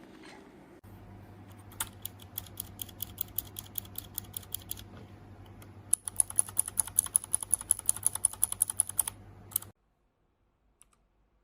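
Typing on a keyboard with Cherry MX-style mechanical switches. A run of quieter rapid clicks starts about two seconds in; a louder, sharper run of clicks follows about six seconds in. Both sit over a faint steady hum, and the sound cuts off suddenly near the end.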